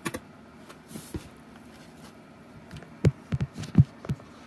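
Handling noise from a cardboard box and foam packaging: a few light clicks, then a quick run of four or five dull, low thumps about three seconds in.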